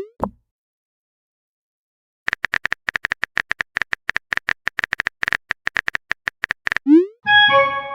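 Phone keyboard typing clicks, rapid and irregular, for about four seconds, then a quick rising swoosh as a message is sent, followed by a short chime of several tones near the end.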